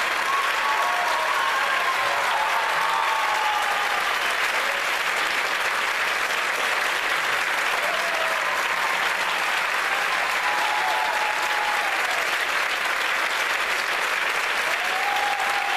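Theatre audience applauding steadily after the orchestra's final chord, with a few cheers rising above the clapping.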